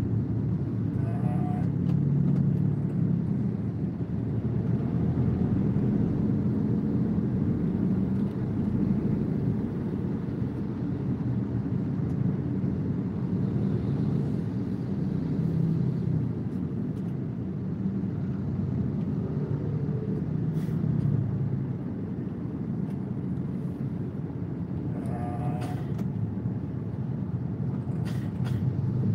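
Steady low rumble of a car's engine and tyre noise heard from inside the cabin while it creeps along in slow traffic.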